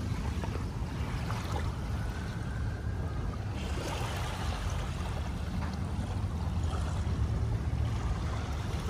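Small waves lapping on a sand shoreline of a calm bay, under a steady low rumble of wind on the microphone.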